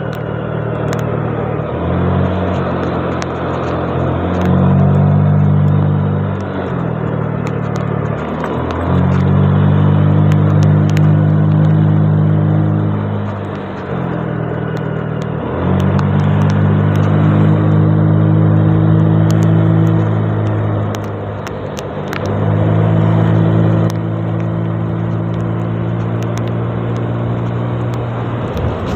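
Honda Vario 125 scooter's single-cylinder engine running under way, its note holding steady for a few seconds at a time, then dipping and picking up again several times as the throttle is eased and reopened, over a steady haze of wind and road noise.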